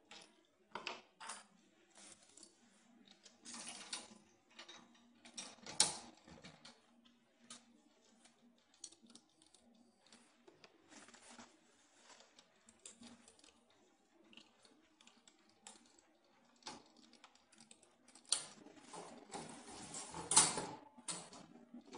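Wire panels of a metal hamster cage clinking and rattling as they are fitted together with plastic corner connectors: scattered light clicks and knocks, busier and louder near the end.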